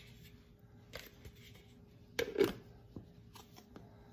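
A few light plastic clicks and knocks as a lid is fitted onto a blender jar, the loudest about two seconds in, over a faint steady hum. The blender motor is not running.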